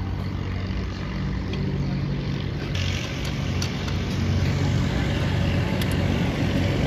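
Steady low hum of an engine running, with a few light metallic clicks from a wrench working the bolts along a diesel engine's crankshaft.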